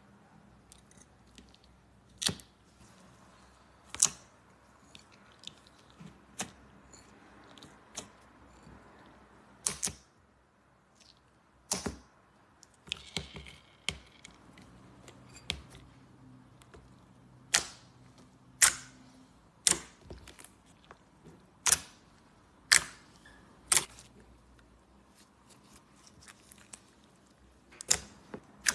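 Slime being pressed and stretched by hand, giving a string of sharp, irregular popping clicks every second or two as air pockets burst, some much louder than others.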